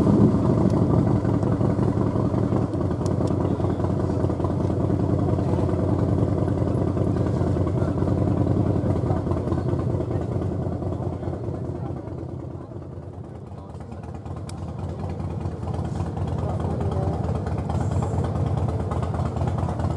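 An engine running steadily, easing off about twelve seconds in and building again towards the end.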